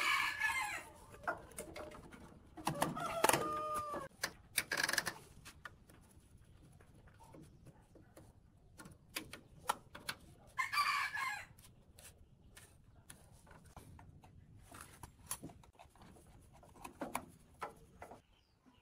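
A rooster calling twice, about three seconds in and again about eleven seconds in, over light clicks and rattles of hands working electrical cable and a switch box.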